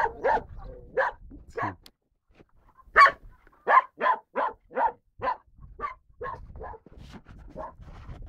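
A dog barking repeatedly: a quick run of barks, a pause of about a second, then the loudest bark about three seconds in, followed by a steady string of barks, about two or three a second, thinning out near the end.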